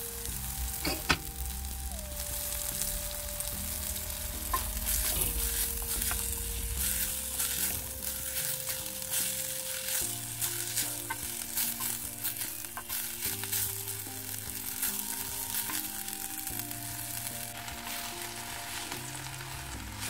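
Chopped spring onion stalks and flowers sizzling in hot oil in a clay pot, stirred and turned with a wooden spoon, with scraping and crackling through the frying hiss. Soft background music with held notes plays underneath.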